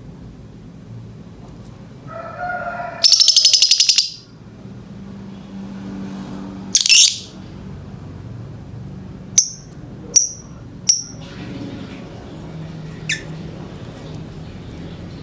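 Lovebird in breeding condition calling in separate shrill bursts. A short chatter leads into a loud, rapid rattling trill about three seconds in, then comes a loud screech about seven seconds in, three short sharp chirps a second or so apart, and a fainter chirp near the end.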